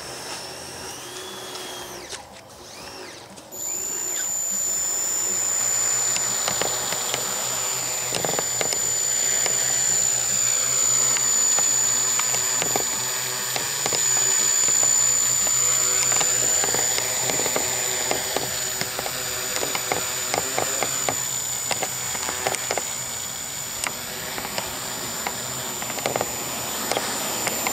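Four NTM Prop Drive 28-26A 1200kv brushless motors spinning 10x4.5 propellers on a Q450 quadcopter: they come up suddenly about three and a half seconds in and run with a steady high whine, the pitch drifting up and down as the craft lifts off and holds a low hover.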